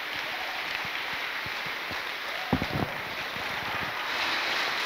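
Congregation applauding, a steady patter of clapping that swells slightly near the end, with a brief thump about two and a half seconds in.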